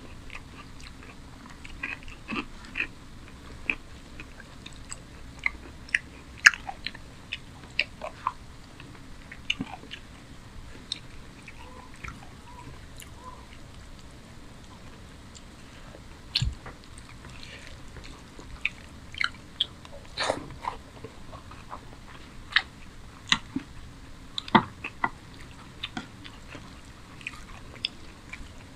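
Close-up eating sounds from a person eating rice and chicken curry by hand: chewing and wet mouth sounds, with many short irregular clicks and smacks.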